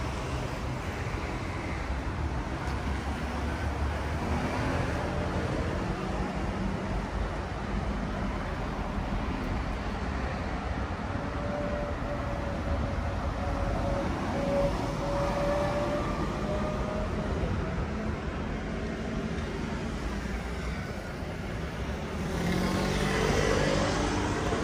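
City street traffic: cars and motor scooters running past in a steady rumble, with one vehicle passing closer and louder near the end.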